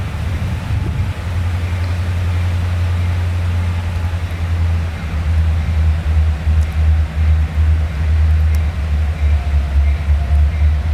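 Low, steady engine drone that starts to pulse unevenly about five seconds in.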